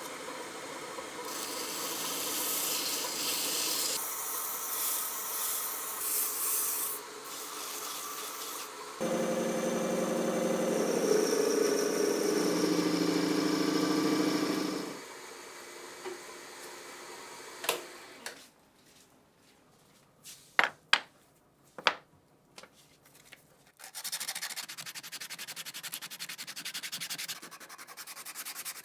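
Sanding and scrubbing of metal gun parts during restoration, a hissy abrasive noise that comes and goes. Midway a power tool runs with a pitched hum for about six seconds, and later a few sharp clicks of parts being handled.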